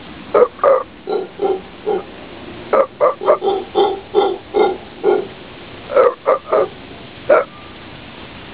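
Mantled howler monkey calling: a series of short, low, rough calls, each a fraction of a second long, in runs of three to eight with brief pauses between the runs.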